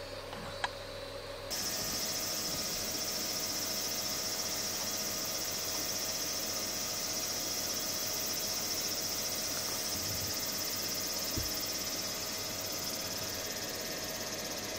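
Cicadas singing in a steady, high, unbroken drone that comes in abruptly about a second and a half in, after a light click.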